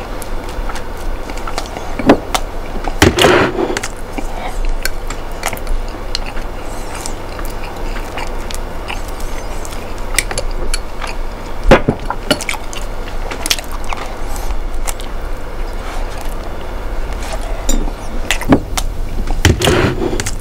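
Eating at a table: small clicks, knocks and scrapes of a knife and dishes, with louder knocks about three, twelve and nineteen seconds in, over a steady low hum.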